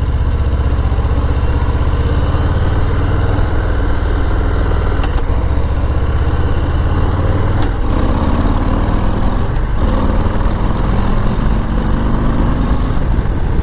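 Harley-Davidson V-twin motorcycle engine pulling away from an intersection and accelerating, heard from the rider's seat with wind noise on the mic.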